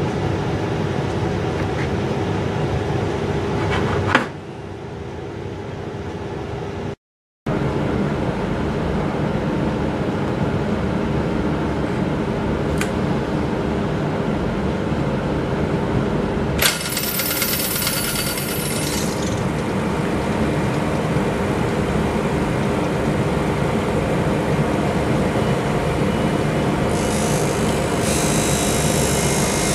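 Lapidary grinding machine motor running with a steady hum, broken by a brief dropout about seven seconds in. Near the end a stone held on a dop stick grinds against the wheel, adding a high rasping hiss.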